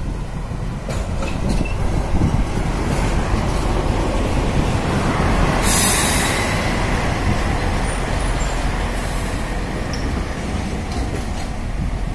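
Plasser & Theurer Stopfexpress 09-3X track-tamping machine and its maintenance cars rolling past close by: a steady rumble of engine and wheels on rail that builds to its loudest about six seconds in. A brief hiss comes at that peak, and a few faint short wheel squeaks sound.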